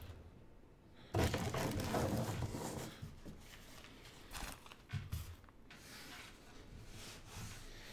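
Faint rustling and handling noise for about two seconds, starting about a second in, then a couple of soft bumps.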